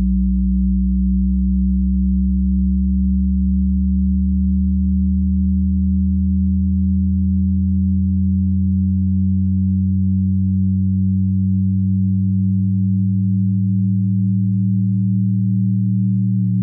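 Electronic drone of several layered, steady low tones with no breaks or strikes. The lowest tone fades away about five seconds in, and a slightly higher one swells up from about ten seconds on.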